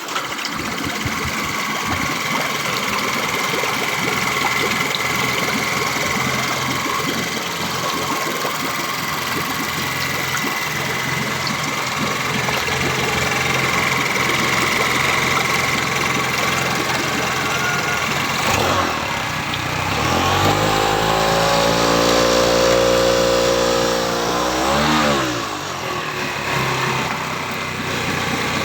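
Honda 20 hp four-stroke engine running steadily. About 19 seconds in its note changes and holds at a new speed for several seconds, dips sharply and recovers, then settles back to the earlier steady running.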